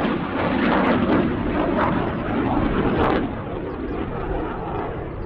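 Saab 35 Draken's afterburning turbojet at full afterburner: loud, rough jet noise that turns quieter and duller about three seconds in as the jet draws away.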